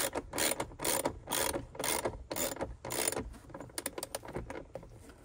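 Socket ratchet wrench clicking in quick back-and-forth strokes, about two a second, as it tightens a battery terminal nut. The strokes stop a little past halfway, followed by a few scattered clicks.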